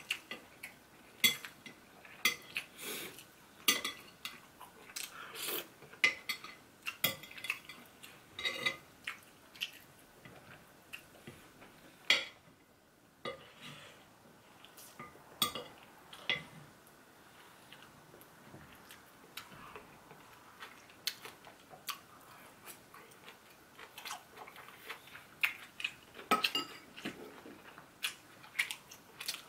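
Metal chopsticks and a spoon clicking and scraping against a porcelain plate in irregular sharp clicks, with chewing between them.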